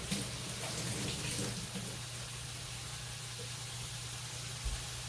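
Steady kitchen hiss over a constant low hum, with a few light clatters of dishware being handled in the first second and a half.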